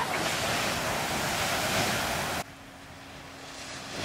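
Big shorebreak waves crashing, a loud rushing whitewater noise mixed with wind on the microphone. About two and a half seconds in it cuts off abruptly to quieter surf and wind with a faint steady low hum.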